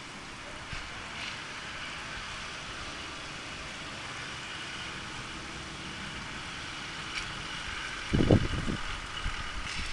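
Steady hiss of car traffic on a wet road, with a short, loud low thump about eight seconds in.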